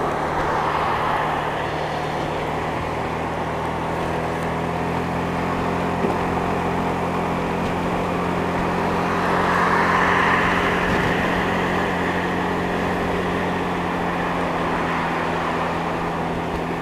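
Motorcycle engine running steadily at motorway cruising speed, under steady wind and road noise, heard through a microphone inside the rider's helmet. The rush of wind and road noise swells for a few seconds around the middle.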